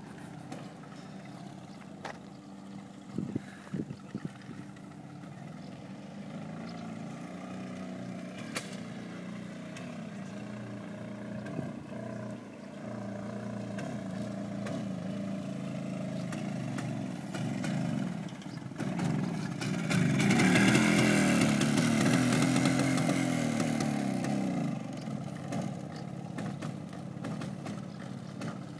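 Small motorcycle ridden in tight circles, its engine revving up and down. It is loudest as it passes close, about two-thirds of the way through, and its pitch falls as it pulls away. A few sharp clicks come about three seconds in.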